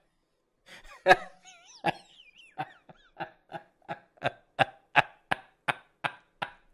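A man laughing hard in a run of short breathy gasps, about three a second, with a few high wavering squeaks in the first half. The gasps grow stronger toward the middle and then weaken.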